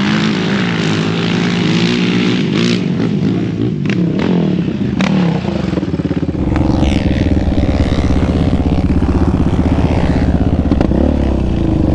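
Sport-quad engines revving and running on sand dunes, the pitch rising and falling with the throttle. About six seconds in the sound switches to a close, steady run of a Yamaha Raptor 700R's single-cylinder engine.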